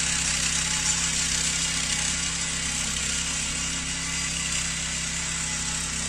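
Small two-stroke brush cutter engine running steadily at idle, a constant even drone with no change in speed.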